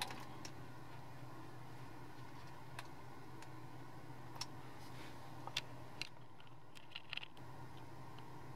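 Low, steady hum in a car cabin with a few faint, scattered clicks.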